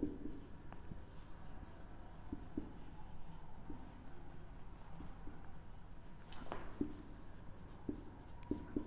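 Marker pen writing on a whiteboard: faint scratching strokes and small taps as words are written out, with a short rising squeak about six and a half seconds in.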